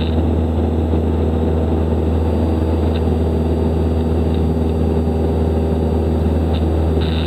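Steady drone of a Cessna 172 Skyhawk's four-cylinder piston engine and propeller, heard from inside the cockpit, holding one even pitch.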